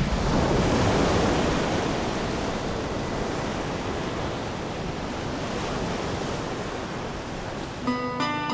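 Ocean surf breaking against a rocky shoreline: a heavy wave crashes at the start, loudest in the first couple of seconds, then a steady rush of surf and spray. Guitar music comes in near the end.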